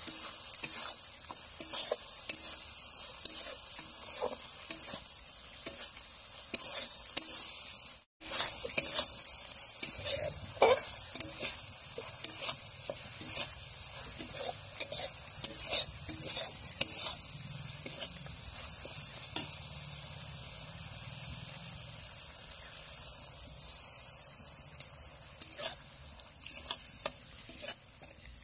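Spice paste sizzling in hot oil in a steel kadai while a steel spatula stirs and scrapes it, with frequent short clicks of metal on metal over a steady hiss.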